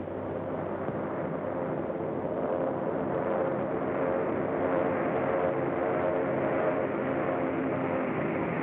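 An engine droning steadily, growing somewhat louder over the first few seconds and then holding, on an early film soundtrack with no high end.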